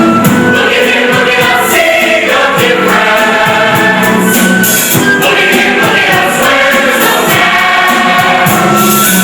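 Stage-musical cast singing together in chorus over musical accompaniment.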